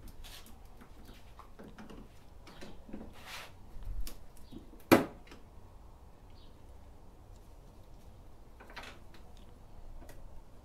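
Hand work on motorcycle windshield mounting hardware: scattered short scrapes and rustles, a low thump about four seconds in and one sharp click about a second later.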